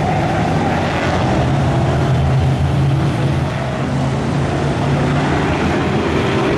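Several BriSCA F1 stock cars' V8 engines running at racing speed as the pack laps the oval, loud and steady.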